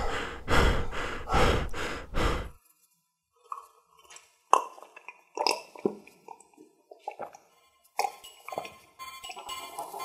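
Dishes and cutlery clattering in quick repeated knocks, cut off abruptly after about two and a half seconds. Then near quiet, with faint gulps and breaths as a man drinks from a glass.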